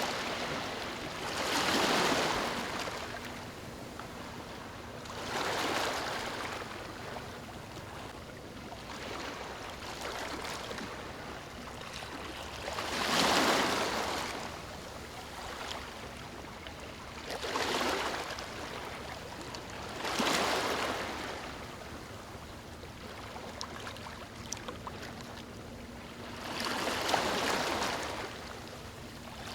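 Small waves lapping on a beach: about six soft washes, each swelling and fading over a second or two at uneven intervals, with quieter lapping water between them.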